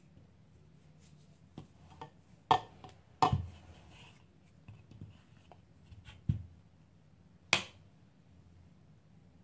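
A knife cutting and scraping risen mandazi dough in a ceramic bowl: scattered sharp knocks and clicks, four of them loud and the rest soft taps.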